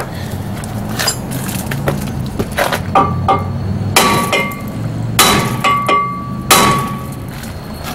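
Hammer blows on a stuck rear brake rotor, struck between the wheel studs to knock it off the hub. There are about seven blows, the last three the loudest, and each leaves the cast-iron rotor ringing with a metallic clang.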